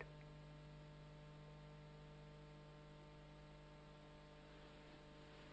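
Near silence: a steady electrical hum with faint hiss underneath.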